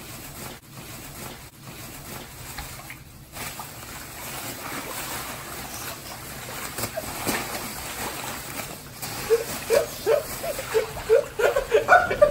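Water sloshing and splashing from a large plastic bag of water pressed down onto a sleeping person's face. From about nine seconds in, a person's voice breaks in with short, rapid sounds over the water.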